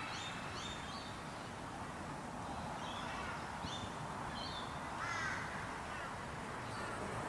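Birds calling in the background: short, high chirps in small clusters, heard several times over a steady background hiss.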